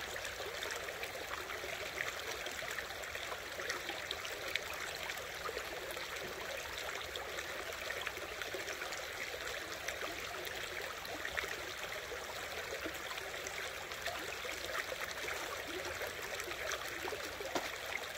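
Creek water running steadily, with scattered faint clicks and splashes.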